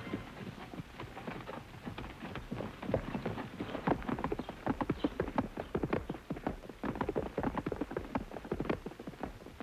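Horse hooves clip-clopping, several sharp knocks a second, as a horse is ridden along.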